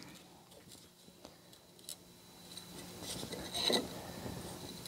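Faint scraping and a few light clicks of a steel straightedge bar and a marker on a steel plate as a cutting line is marked out, growing louder past the middle with one stronger scrape about three-quarters in.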